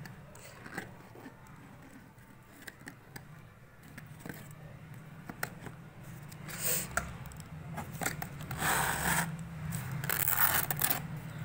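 Box cutter scraping and clicking along the taped seam of a cardboard shipping box, then the cardboard flaps pulled open with louder rustling and scraping in the second half. A steady low hum sits underneath.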